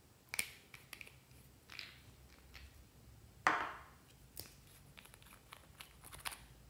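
Small clicks and scrapes of glass nail polish bottles and their plastic screw caps being handled, capped and uncapped, with one louder, brief scrape about halfway through.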